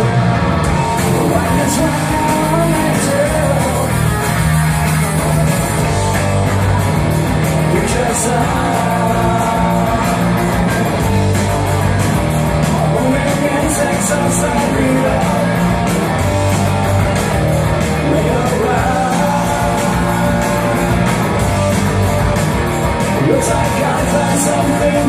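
Live rock band playing loud and steady, with electric guitar, electric bass and drums under a sung lead vocal, heard from within the crowd.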